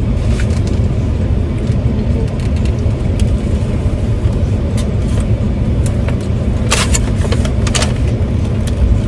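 Steady low rumble of a car engine running, heard from inside the cabin, with a few brief clicks or rustles near the end.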